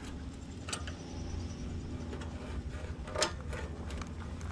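Stainless steel tubes of a bimini frame being worked together by hand, giving two short metallic clicks about a second in and again near three seconds, over a steady low rumble.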